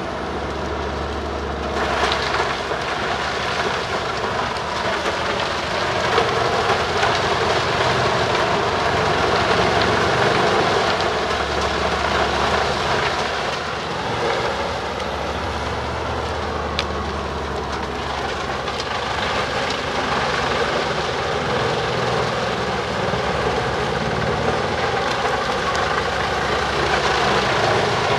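Truck-mounted Bruks 1006 ST wood chipper running on its separate 720 hp engine and chipping forest slash: a loud, steady, dense mechanical din over a low engine drone that swells and eases a little.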